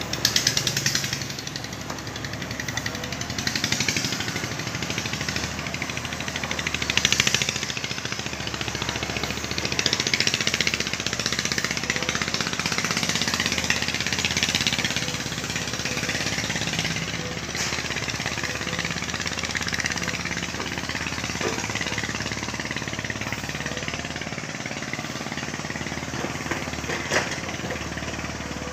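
Sumitomo excavator's diesel engine running under load with a fast rattling pulse, swelling louder every few seconds as the hydraulics drive the boom and bucket through digging and swinging soil. A single sharp clank near the end.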